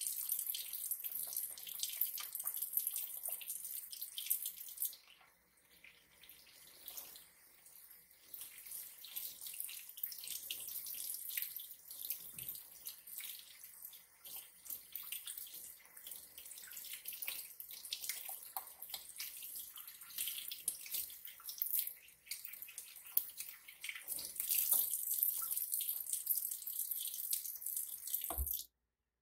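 Kitchen faucet running into a sink while hands are rubbed and rinsed under the stream, the splashing changing as the hands move in and out of the water. The water sound stops abruptly near the end.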